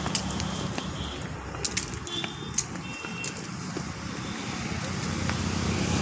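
Road traffic rumble that grows louder near the end, with scattered light clicks and a couple of brief high chirps.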